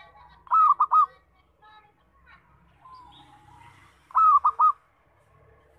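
Zebra dove (perkutut) singing: two loud bursts of three or four quick, clipped cooing notes, about half a second in and again near four seconds in, with softer cooing notes between them.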